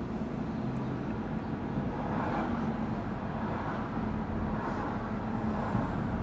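Steady road and tyre noise of a car driving at low town speed, heard from inside the cabin, with a low hum under it.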